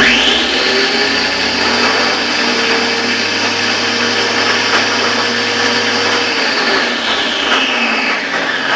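WAP Super electric high-pressure washer switched on and running loud and steady, making the strange noise the customer complained of; the pitch sags and the motor begins to slow near the end.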